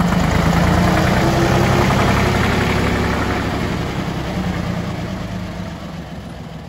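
1954 Porsche-Allgaier A133 tractor's three-cylinder air-cooled diesel engine running as the tractor drives past and away, loudest about a second in and fading toward the end.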